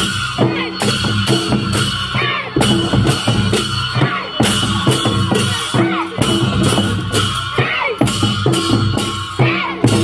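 Several double-headed barrel drums played together in a fast, steady rhythm, each beaten with a stick on one head and the bare hand on the other. Hand cymbals clash along with the drums.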